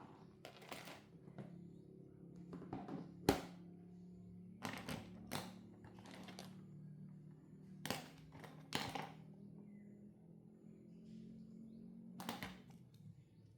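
Faint background music with steady low sustained notes, over which come scattered sharp clicks and taps of small tools and phone parts being handled during a smartphone battery replacement. The loudest tap comes about three seconds in.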